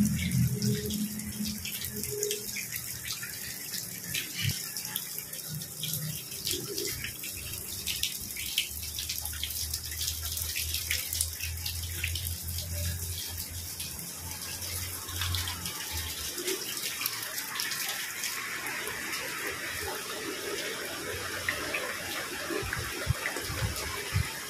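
Heavy rain falling steadily, a dense patter of many drops.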